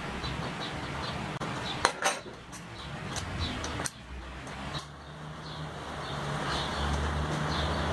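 Metal clinks and sharp knocks of steel tools against a bench vise and the red-hot iron bar clamped in it as the bar is worked, loudest about two seconds in, with a few lighter clinks over the next two seconds.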